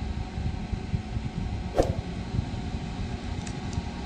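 12-volt DC cooling fan of a homemade kitchen chimney running steadily with a low rumble, drawing air up the aluminium duct. A brief falling whoosh about two seconds in.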